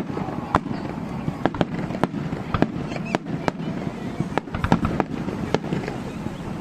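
Fireworks display: shells bursting in a rapid, irregular string of sharp bangs over a steady low rumble.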